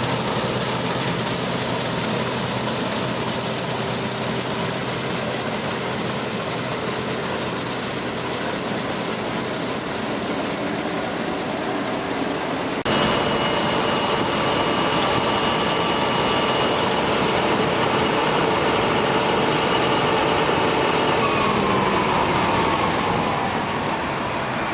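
Combine harvester running steadily while cutting wheat, an even machine drone. About halfway through the sound changes abruptly, turning a little louder with a steady high whine added, and a few falling tones come in near the end.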